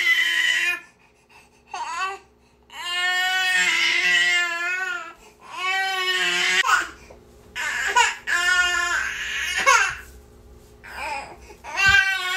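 Baby crying: a series of loud wailing cries, each a second or two long, broken by short pauses for breath, with a few brief sobs in between.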